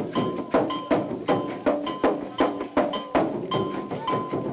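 Music with percussion: a steady rhythm of sharp, ringing strikes, about three a second.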